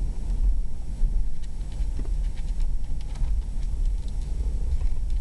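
Wind rushing in through the open side window of a moving truck and buffeting the microphone, over road noise: a low, unsteady rumble that rises and falls.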